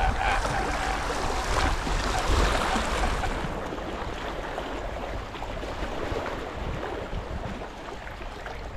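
Small sea waves washing and splashing against the rocks of a seawall, with wind buffeting the microphone; louder in the first few seconds, then softer.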